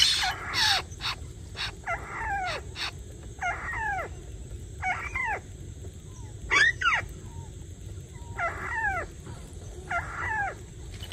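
A bird calling over and over: a short downward-sliding call repeated about every one and a half seconds, some seven times, loudest a little past the middle. A few sharp clicks come in the first three seconds.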